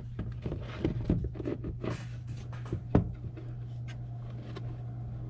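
Handling noise as a pleated high-flow air filter is pressed into a plastic airbox: a run of light clicks and knocks over the first three seconds, the sharpest near three seconds, then quieter, over a steady low hum.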